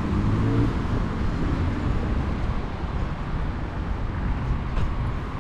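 Steady outdoor rumble of road traffic, with no single event standing out.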